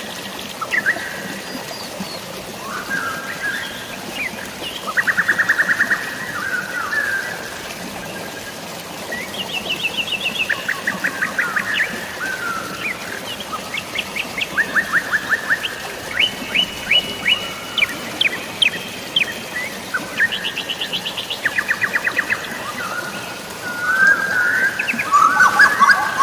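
Birds chirping and calling, with rapid trills repeating every few seconds and a denser burst of calls near the end, over a steady hiss of drizzling rain and flowing water.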